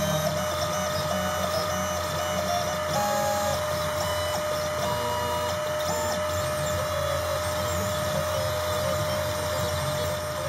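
Desktop CNC engraver running a job: its stepper motors whine in short steady tones that jump from pitch to pitch as the axes change speed and direction, over a steady hum.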